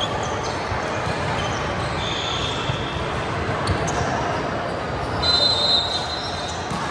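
Echoing gym din: balls bouncing on a hardwood court, with background chatter from players and onlookers. Two short high squeals cut through, one about two seconds in and a louder one a little after five seconds.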